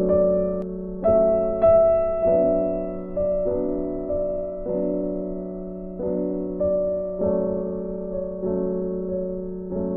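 Background music: soft piano playing slow notes and chords, each struck and fading away.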